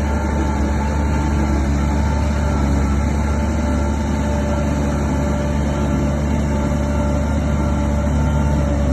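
Heavy diesel engine of a Shantui DH17 bulldozer running steadily under load, a deep even hum with a few held tones above it and no change in level.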